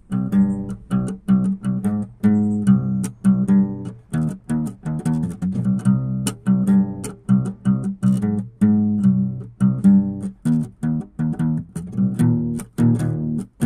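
Instrumental background music of quickly plucked guitar notes in an even rhythm, several notes a second.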